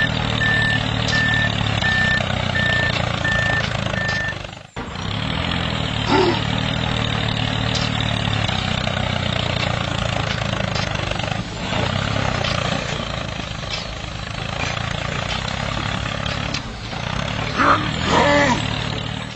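Heavy vehicle engine running steadily, with six reversing beeps over the first four seconds. The engine sound breaks off briefly about five seconds in, then carries on.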